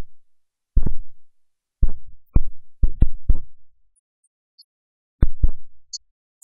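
Series of low, dull thumps, about nine in irregular pairs and groups, each dying away quickly with silence between.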